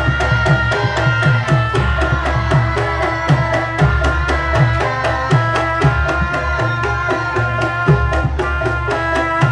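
Live Javanese gamelan music: quick, steady hand-drum strokes over ringing metal gong-chime and metallophone notes.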